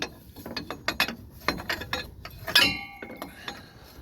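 Large wrench working a hydraulic hose fitting: irregular metal clicks and clinks as the wrench is turned and repositioned, with one louder metallic clank about two and a half seconds in that rings briefly.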